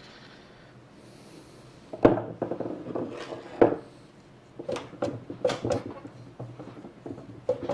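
Irregular clunks and knocks of heavy metal parts as a Coleman 4x4 axle hub assembly is worked loose from its drum, starting about two seconds in, with the sharpest knocks near two seconds in and again a little later.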